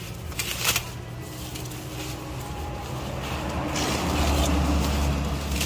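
Low, steady rumble of a motor vehicle's engine running nearby, growing louder about two-thirds of the way through, with a short rustle of plastic wrapping near the start.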